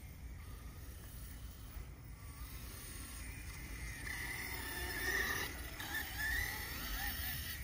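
ARRMA Notorious 6S 1/8-scale brushless RC car driving on grass: its motor and drivetrain whine grows louder and wavers up and down in pitch as it comes close, about four seconds in, over a steady low rumble.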